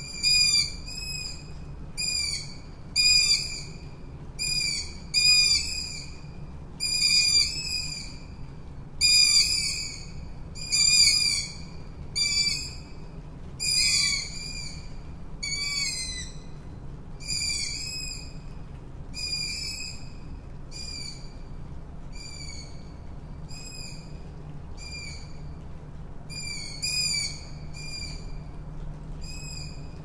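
Tawny owl calling: a rapid series of short, high, sharp calls, about two a second. They are loudest in the first half and grow fainter and sparser after the middle, over a steady low background hum.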